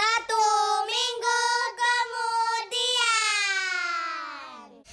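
A child's voice singing a short tune: a string of brief held notes on nearly one pitch, then a long final note that slides down and fades near the end.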